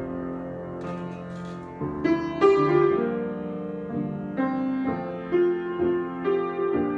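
Solo piano improvisation: sustained chords, with fresh notes and chords struck about two seconds in and then every half second to a second.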